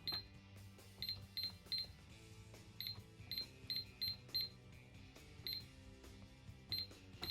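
Toy cash register's calculator keypad beeping once per key press: about a dozen short, high-pitched beeps at an uneven pace, some in quick runs.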